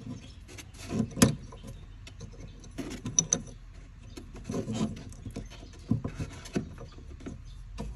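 Fingers working at a plastic retaining clip on a handbrake cable end, with scattered small clicks, knocks and scrapes of the cable and its metal bracket being handled; the sharpest click comes a little after a second in.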